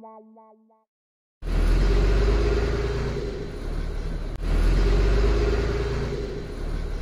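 A short musical jingle fades out, and after a moment of silence a car is heard driving, its engine rumbling low. The level jumps up and then slowly eases off twice, about every three seconds, as if the same stretch of sound were repeated.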